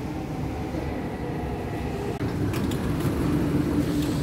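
Dubai Metro train carriage rumbling low as it comes to a stop at a station, heard from inside. A few sharp clicks come about two and a half seconds in as the doors open.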